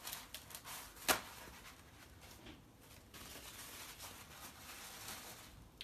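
Soft, scratchy rustling of watercolour work on paper, with one sharp tap about a second in.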